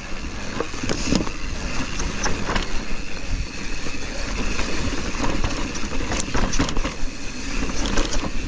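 Mountain bike riding down a steep, rocky trail: tyres rumbling and bumping over rock, with scattered sharp knocks and rattles from the bike, over a steady low rumble.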